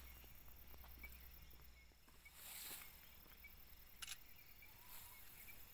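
Near silence: faint outdoor ambience, with a faint high tick repeating about twice a second and a brief rustle about four seconds in.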